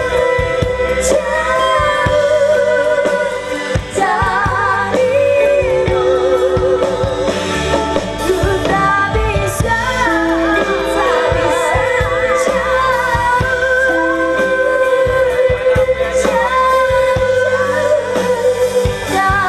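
Live band music with singing: a vocalist holds long notes with a wide vibrato over a steady band backing.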